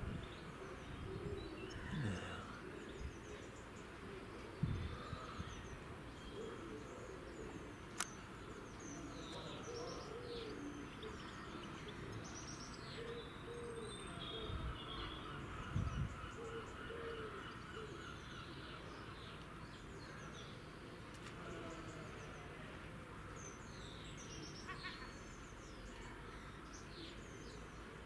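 Small birds chirping and twittering, many short calls scattered over a steady outdoor background hiss. A few low thumps and one sharp click about eight seconds in.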